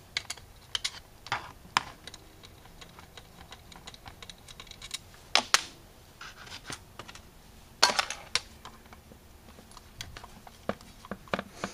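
Light clicks and clinks of a screwdriver and small metal carburetor parts being handled as the accelerator pump is taken off, with two louder clacks about five and a half and about eight seconds in.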